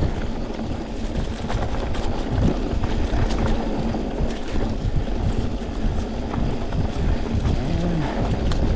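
Wind buffeting the microphone as a mountain bike rolls along a dirt trail, with scattered clicks and rattles from the bike.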